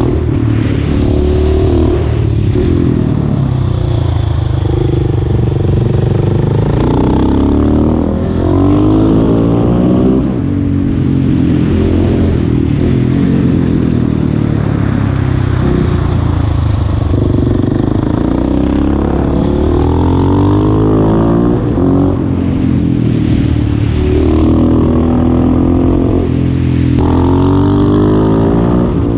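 Husqvarna 701 Supermoto's single-cylinder engine run hard up a hill road, its pitch climbing under throttle and dropping off again and again.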